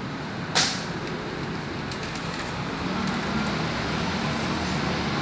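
Steady workshop background rumble, with one short, sharp hiss or rip about half a second in.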